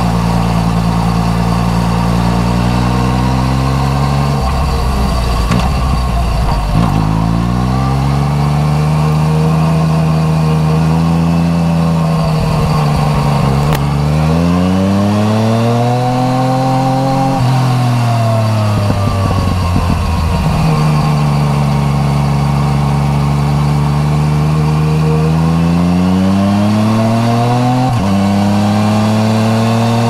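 Yamaha MT-09 Tracer's three-cylinder engine through an Akrapovič titanium exhaust, ridden on the road: the engine note dips early on, climbs steadily to a peak a little past halfway, drops back, holds steady, then climbs again with a quick gear-change break near the end.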